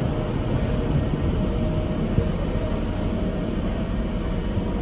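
A Tyne and Wear Metrocar standing at an underground station platform, its onboard equipment running with a steady hum and a faint high tone.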